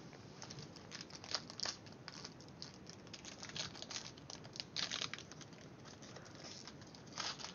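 Packaging crinkling and crackling in irregular bursts as a trading-card box is opened and handled, going quieter past the middle, with a few more crinkles near the end.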